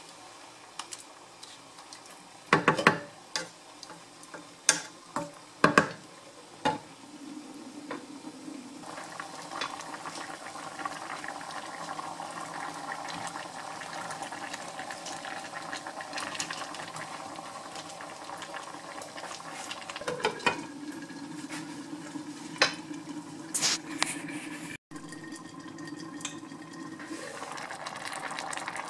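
Tomato-based chicken stew simmering and bubbling in a skillet, with a wooden spatula knocking against the pan several times during the first few seconds of stirring. The simmer then runs on steadily, with a few sharp clinks of pan and lid later on.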